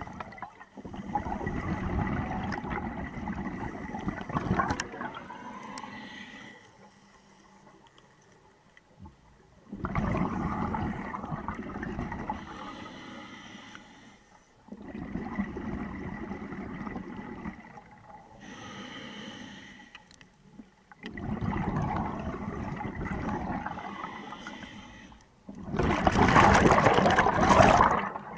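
Scuba diver breathing through a regulator underwater: five long, bubbling exhalations, each a rush of bubbles that fades away, separated by quieter pauses for the in-breath. The last exhalation, near the end, is the loudest.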